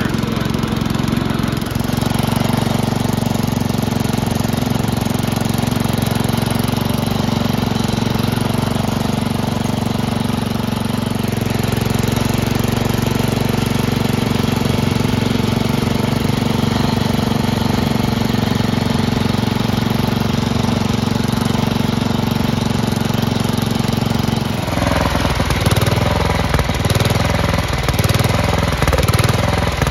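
The single-cylinder engine of a 1968 Sears Suburban 12 garden tractor runs steadily while the tractor is driven. About 25 seconds in, the sound changes to a rougher, pulsing run.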